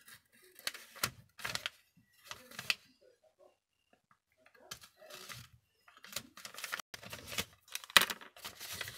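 Kraft gift-wrap paper rustling and crinkling in short scratchy bursts as a craft knife slits the tape on a small parcel, turning into steadier rustling as the paper is unfolded near the end. A sharp tap about eight seconds in as the knife is set down on the cutting mat.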